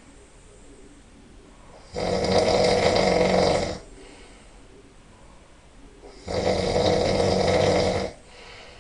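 A person snoring really loud in sleep: two long snores, each nearly two seconds, about four seconds apart, with much quieter stretches between.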